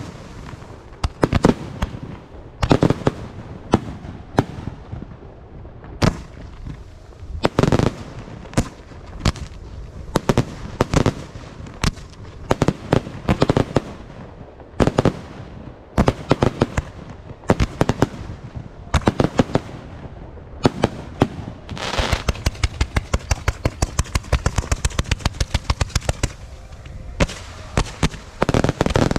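Fireworks going off in a string of sharp bangs at uneven intervals, becoming a rapid volley of about four or five bangs a second for the last third.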